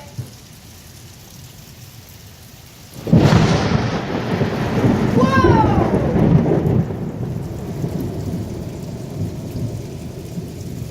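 Steady rain, then about three seconds in a close thunderclap breaks suddenly and rolls on for several seconds before fading back under the rain.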